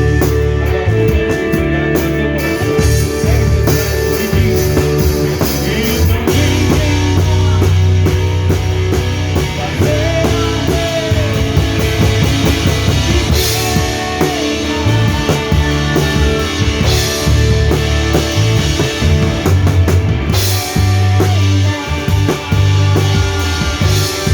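Live band playing a rock-style song, with the drum kit up front: bass drum and frequent drum hits over sustained bass and guitar.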